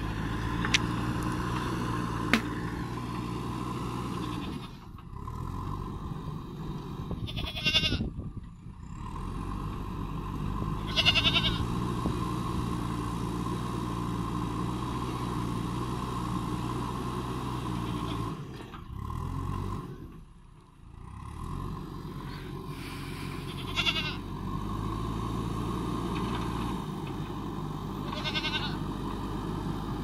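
JCB backhoe loader's diesel engine running as the machine pushes soil with its front bucket; its engine note drops away briefly a few times. A goat bleats four times over it.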